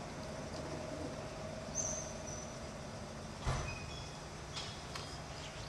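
Stationary EF64 electric locomotives humming steadily with a thin whine. A single sharp clank comes about three and a half seconds in, followed by a few lighter clicks.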